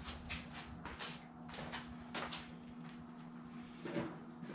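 Faint handling noises: scattered light clicks and rustles of parts and packaging being handled, over a faint steady hum.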